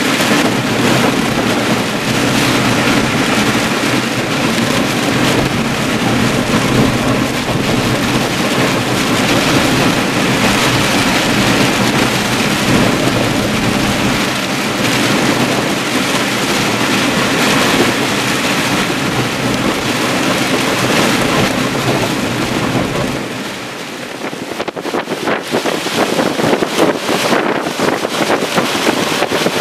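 Hurricane wind and heavy rain blowing across the microphone: a dense, steady rush of noise with a low hum beneath it. About 23 seconds in it dips briefly, then turns into ragged gusts buffeting the microphone.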